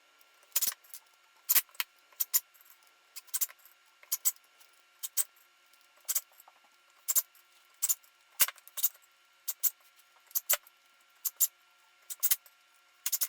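Sharp, light clicks, one or two a second and irregularly spaced, with a faint steady high tone behind them.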